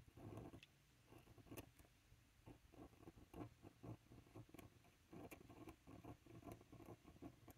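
Faint scratching of a metal dip-pen nib on textured card as a word is written in script, in many short, irregular strokes.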